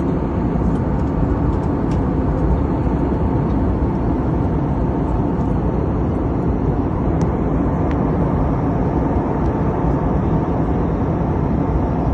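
Steady cabin noise inside an airliner in flight: a constant low rumble of engines and rushing air, with a few faint ticks.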